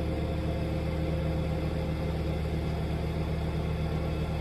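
Rollback tow truck's engine running steadily while it drives the hydraulics that lower the loaded tilt bed.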